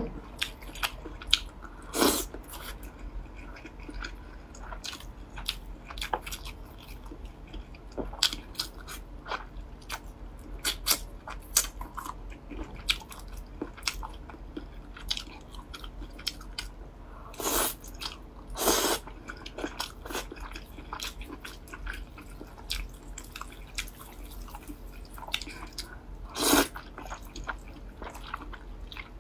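Close-miked eating sounds: a person chewing and biting chicken leg, with many small, sharp, wet clicks and a few louder, longer bursts spread through.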